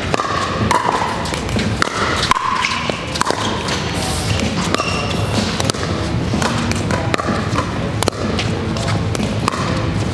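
Pickleball paddles striking a plastic pickleball in a doubles rally: a string of sharp pops, over a steady background of music and voices.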